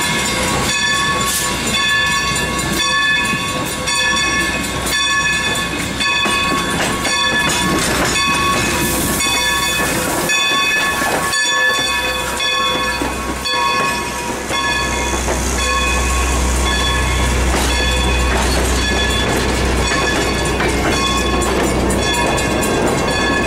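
Steam locomotive bell ringing steadily, struck about every two-thirds of a second, as the train and its passenger coaches roll slowly past with some steam hiss. A low rumble comes in about fifteen seconds in and stays.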